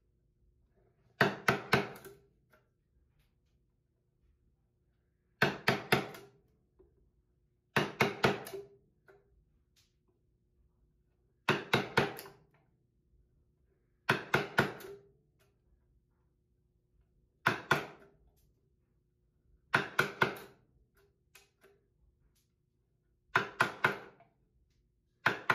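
Wooden mallet striking a wood-handled chisel, chopping out a stopped rabbet in a pine board. The blows come in about nine quick bursts of three to five sharp knocks, one burst every two to three seconds.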